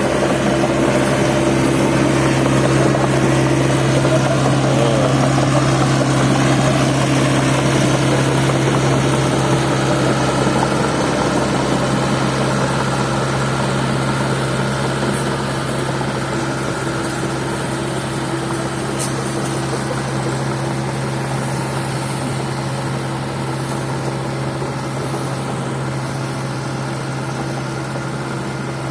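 Medium excavator's diesel engine running with a steady hum, slowly growing quieter as the machine moves away.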